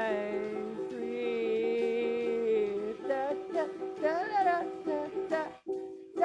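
Acoustic guitar strummed in steady chords under a singing voice. The voice holds one long note for about three seconds, then moves into shorter wavering phrases, and briefly breaks off near the end.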